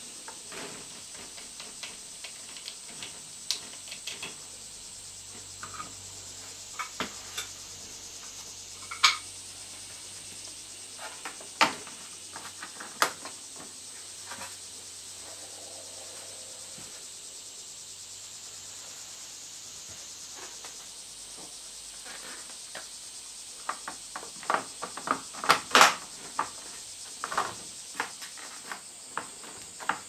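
Scattered plastic clicks and knocks as the fan blade and cover of a Panasonic window exhaust fan are handled and taken off, loudest in a quick cluster near the end. A steady high-pitched hiss runs underneath.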